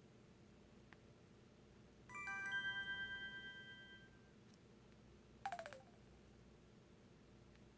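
Built-in alert tones of a Samsung Anycall SPH-W3000 mobile phone playing through its small speaker. A chime of several tones starts about two seconds in and fades over about two seconds. About five and a half seconds in comes a short effect sound that falls in pitch.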